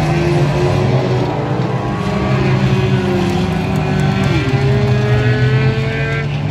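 Several race car engines running hard as the cars lap a short oval track, a steady mixed engine noise with pitches that rise and fall slowly.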